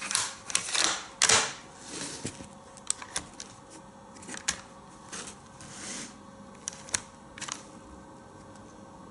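The action of a Sauer 404 bolt-action rifle being worked by hand: the bolt slid home and closed, with a quick cluster of sharp metallic clicks and short sliding noises in the first second and a half, then scattered single clicks until about seven and a half seconds in.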